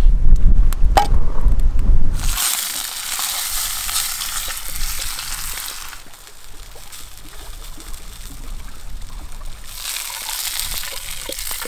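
A low rumble for the first couple of seconds, then a whole trout frying in oil in a pan over a campfire: a steady hissing sizzle. The sizzle eases off in the middle and grows stronger again near the end.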